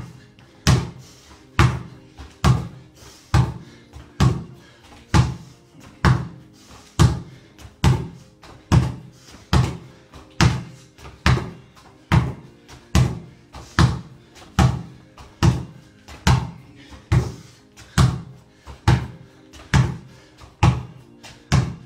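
A basketball bounced hard on a tiled floor a little more than once a second in a steady rhythm, each bounce joined by the thud of sneakers landing from a jumping lunge.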